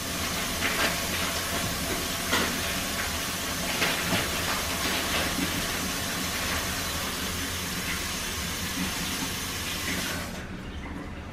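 Kitchen tap running in a steady hiss as smoked sausage is rinsed under it, with a few faint knocks; the water shuts off about ten seconds in.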